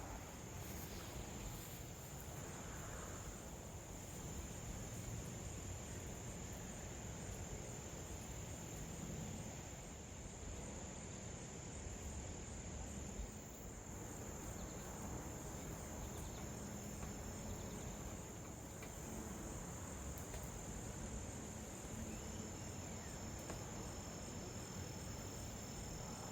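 Crickets chirping in a steady high-pitched chorus over a low, even background noise.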